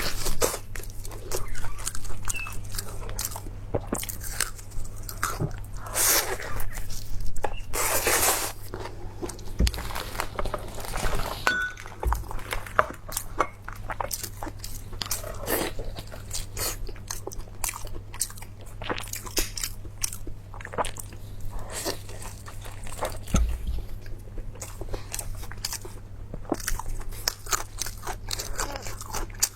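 Close-miked eating: a person chewing and biting crunchy food, with many quick irregular crunches and mouth clicks and a few louder bites, over a steady low hum.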